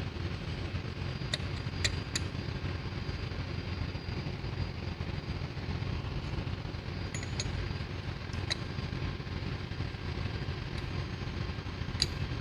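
Steady low hum of running machinery, with a handful of sharp metallic clicks as fuel injection pump parts are handled and fitted: three close together about a second and a half in, two more past the middle, and one near the end.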